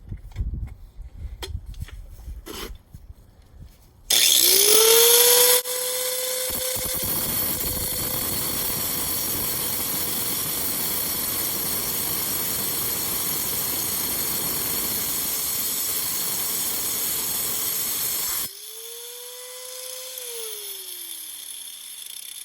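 Angle grinder cutting through a quartz geode. After a few light handling knocks, it starts about four seconds in and spins up loudly for a moment. It then cuts steadily with a grinding hiss under the motor's tone for about thirteen seconds, is released, and winds down with a falling whine near the end.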